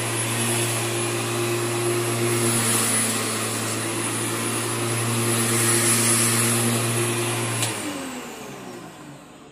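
Corded electric lawn mower running with a steady hum and a high whine. About eight seconds in the motor stops and spins down, its pitch falling away.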